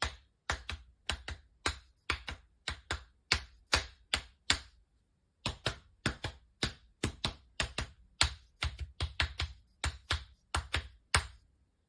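Hand claps in a quick, steady run of about three a second, with a short break about five seconds in.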